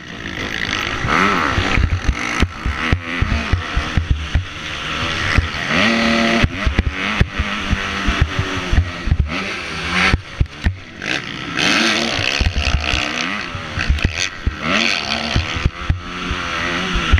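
Racing dirt bike engine, a 250 motocross bike, revving up and dropping back again and again as the rider accelerates and shifts around the track. Frequent knocks and clatter from the bike over ruts and bumps run through it.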